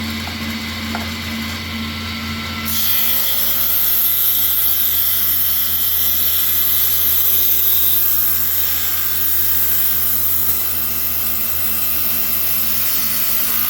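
Table saw running, with a steady motor hum; about three seconds in, the blade starts ripping through a board and the sound grows louder and brighter, then holds steady as the cut goes on.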